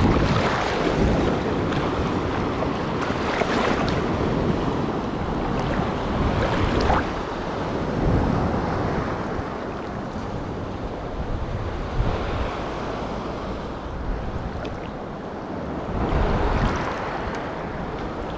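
Surf water sloshing and lapping around a wading angler's body, with wind buffeting the microphone; the wash swells and eases a few times.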